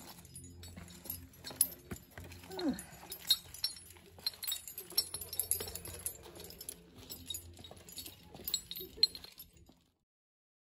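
Climbing hardware (carabiners and protection on a harness rack) clinking and rattling as it is handled, with one short falling call about two and a half seconds in. The sound cuts off suddenly near the end.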